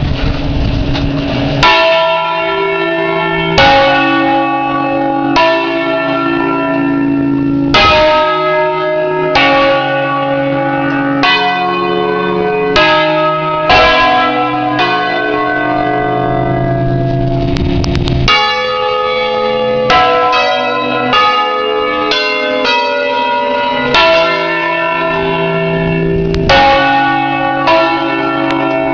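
A peal of eight church bells tuned to a C major scale, swung in the Ambrosian system and struck one after another in a melodic sequence, heard up close in the belfry. A new stroke comes every second or two, each bell ringing on under the next.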